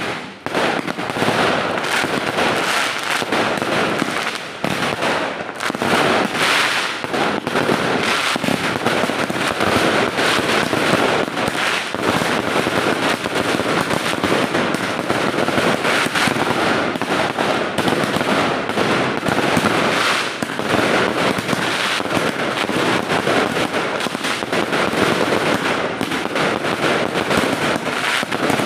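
A row of small boxed consumer fireworks firing together on the pavement: a dense, continuous barrage of crackling and popping that begins abruptly and keeps up without a break.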